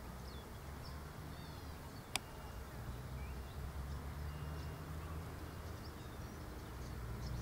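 Faint, short, high chirps of small birds scattered through, over a steady low rumble, with a single sharp click about two seconds in.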